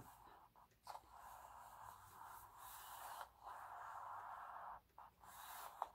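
Near silence, with a faint rustle of paper pages being handled and pressed shut, and a few soft taps.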